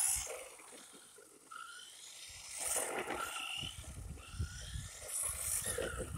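Electric 1/16-scale RC short course truck driving slowly on its low-speed setting: faint at first, then short whines from the motor and a rough low rumble as it rolls, from about halfway.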